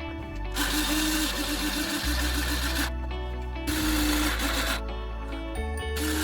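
Background music: held bass notes that change every second or two under a pitched melody line, with a bright hiss-like layer that drops in and out.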